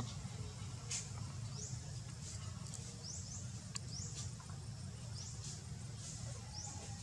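Repeated short high chirps, each a quick rising sweep, coming about once a second at uneven intervals over a steady low rumble, with a few sharp faint clicks.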